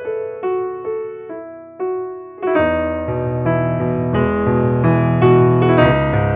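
Background piano music: single notes stepping down in pitch, then fuller, louder chords with a bass line coming in about two and a half seconds in.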